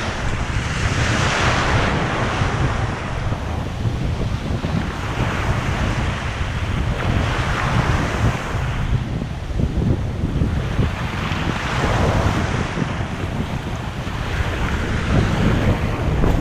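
Surf breaking on a beach, with a wave washing in every few seconds, and wind buffeting the microphone in a steady low rumble.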